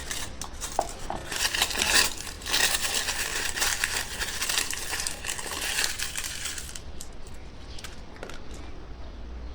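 Candy wrapper crinkling and crackling densely for about seven seconds, then dying down to a few faint crackles.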